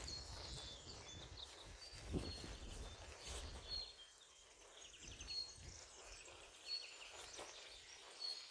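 Short, high bird chirps repeating every second or so over faint outdoor background, with a low rumble in the first half that dies away about four seconds in.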